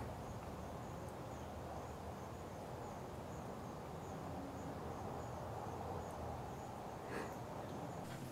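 An insect chirping steadily, a high-pitched note repeating about twice a second, over a faint steady outdoor hiss. A single short click sounds about seven seconds in.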